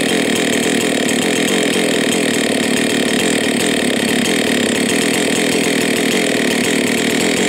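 Husqvarna 272 XP chainsaw's two-stroke engine idling steadily while the saw rests on the ground.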